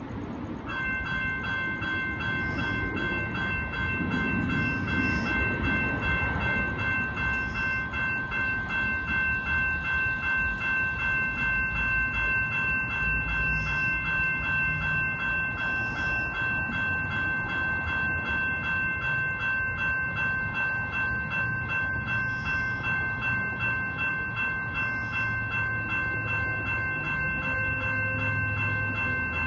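Three electronic railroad crossing bells, two GS Type 2 and one WCH Type 2 e-bell, start ringing about a second in and keep ringing in a fast, steady, overlapping ding. The crossing has activated for an approaching train.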